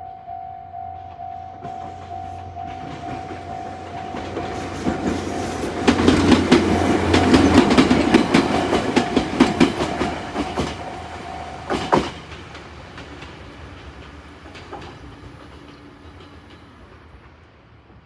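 Japanese level-crossing warning bell, an electronic single-tone Tōkai-type alarm, dinging in a steady repeated pulse while an electric train passes, its wheels clacking sharply over the rail joints. The bell stops about two-thirds of the way through as the train clears the crossing, and the train's running noise fades away.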